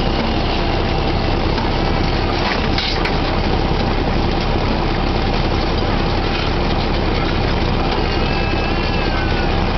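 Drilling rig machinery running loud and steady while pipe is tripped, its engines holding a constant drone. A short knock comes about two and a half seconds in, and a faint squeal glides in pitch near the end.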